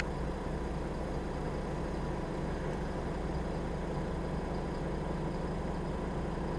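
Steady engine drone and road noise of a city bus in motion, heard from inside the passenger cabin.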